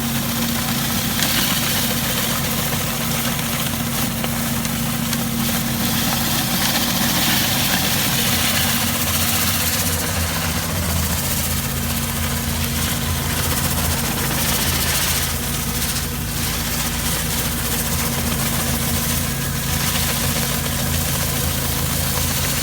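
Hot-water pressure washer running steadily, its engine and pump holding an even hum, with a changing hiss from the high-pressure water jet.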